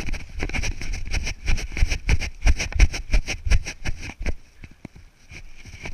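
Wind buffeting and rapid, irregular knocks on a body-worn action camera as the wearer runs: footfalls and the jostling mount. It eases off about four seconds in.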